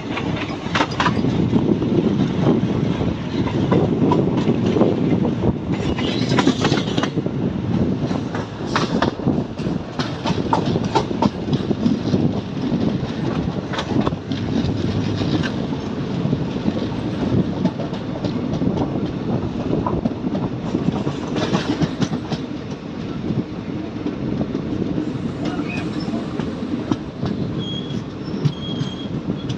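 Passenger train running along the track, heard from on board: a steady wheel-and-rail rumble with irregular clickety-clack from the rail joints, and twice a brief louder hiss.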